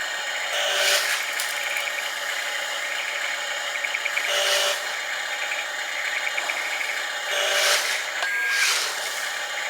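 Dump truck's machinery whirring steadily while it tips out a load of sand. The whir surges louder about a second in, at about four and a half seconds, and twice near the end.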